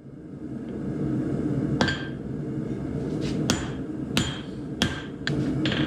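Hand hammer striking a hot steel knife blade on an anvil: about five ringing blows starting about two seconds in, forging the edge down at the ricasso shoulder. A steady low rumble runs underneath.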